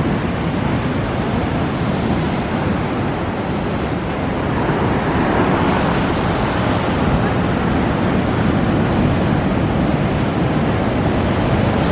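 Ocean surf breaking, a steady wash of waves with wind on the microphone; the surf swells louder about five seconds in.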